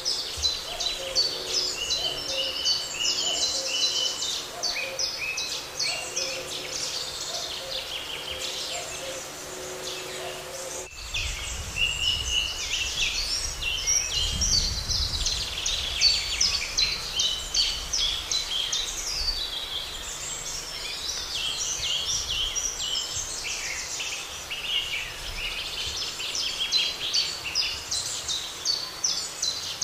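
A chorus of songbirds singing, with many overlapping chirps and trills. For about the first ten seconds a low hooting call repeats beneath them. Then the track changes abruptly: the hooting stops and a low rumble comes in under the birdsong.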